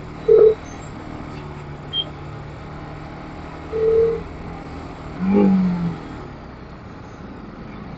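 TVS Apache RR 310's single-cylinder engine running steadily under way, with road and wind noise. Three short pitched blasts stand out: one just under half a second in, one about four seconds in, and a longer, lower one around five and a half seconds in.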